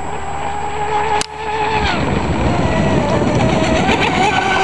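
Vortex hydro RC boat's motor whining steadily at speed on the water, with a short click about a second in; the pitch drops about two seconds in as the throttle eases through a turn, then climbs back near the end.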